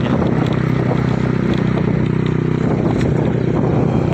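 Engine of a small road vehicle running steadily at cruising speed, heard from on board, with road and wind noise.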